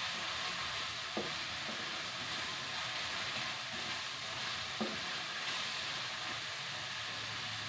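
Blended spice paste sizzling steadily in hot oil in a wok as it is sautéed, with a spatula stirring through it and knocking against the pan twice.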